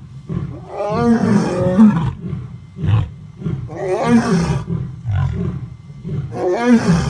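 Male lion roaring: a bout of repeated deep roars, each falling in pitch. The loudest come about a second in, about four seconds in and near the end, with weaker calls between.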